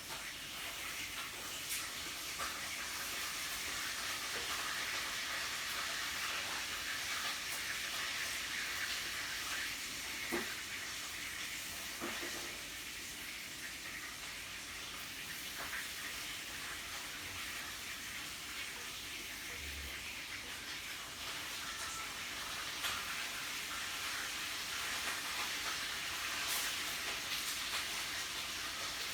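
Meat sizzling on a yakiniku grill: a steady hiss, with a few faint clicks about ten and twelve seconds in.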